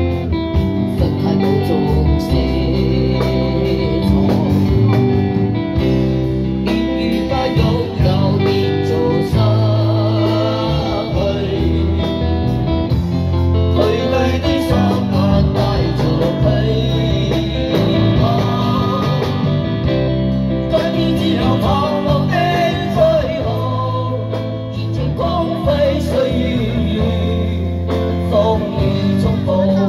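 Amplified live band playing a slow song: electric guitar and drum kit with a man singing into a microphone through a PA; the voice comes in most clearly about halfway through.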